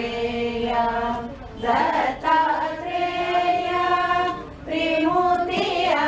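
A group of women singing a devotional hymn together in unison, in long held notes. The phrases break off briefly twice.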